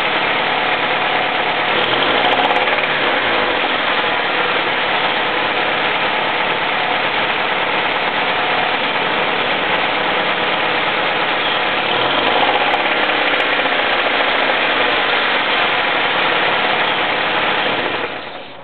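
Honda Civic Si's D16Z6 1.6-litre four-cylinder engine running, with two brief rises and falls in revs, about two and twelve seconds in; this is the engine knock the owner is recording. The engine sound drops away just before the end.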